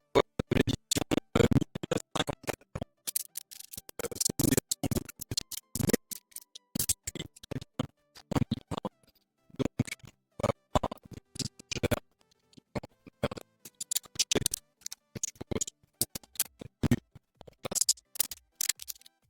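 Background music made of short, choppy clicks and scratchy percussive strokes with brief silent gaps between them.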